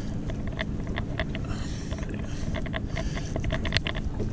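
Irregular small clicks, taps and scrapes of a fillet knife and a live, flapping blackfish on a boat's fish-cleaning board, over a steady low rumble.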